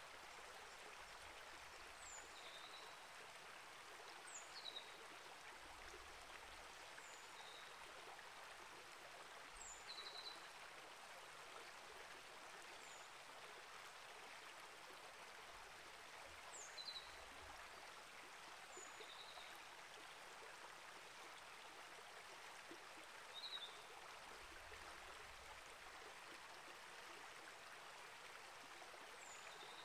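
Small rainforest creek flowing steadily, a faint even rush of water. Short high chirps that drop in pitch come every couple of seconds over it.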